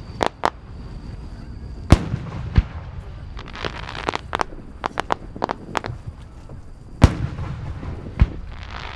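Aerial fireworks shells bursting: deep booms about 2 s and 7 s in, two lighter bangs after them, and quick crackling pops in between.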